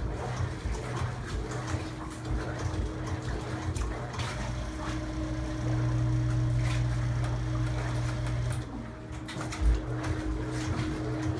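Electric boat lift motor running with a steady hum, driving the belt, pulley and large gear of the lift. About nine seconds in it cuts out briefly and starts again with a clunk, then runs on as the lift lowers easily.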